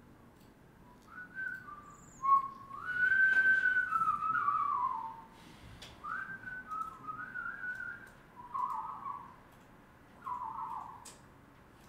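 A man whistling an idle tune to himself, in several short phrases with pauses between, the longest and loudest a few seconds in.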